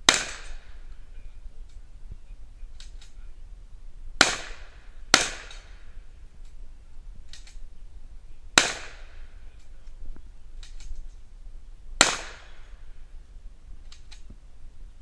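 Handgun shots: five sharp reports, irregularly spaced, with two about a second apart in the middle. Each shot has a short echoing tail, and fainter distant pops fall between them.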